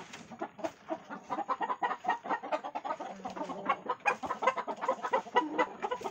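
A flock of gamecocks clucking, with many short calls overlapping throughout.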